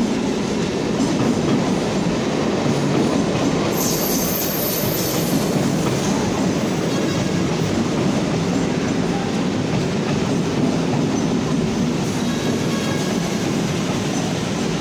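Chennai MRTS suburban electric train running along the station platform, a steady rumble with wheels clattering over the rails. A brief high-pitched squeal about four seconds in.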